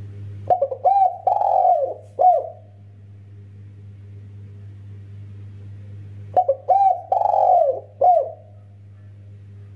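Spotted dove (tekukur) cooing: two phrases of four or five rolling coos each, one about half a second in and one about six seconds in, over a steady low hum.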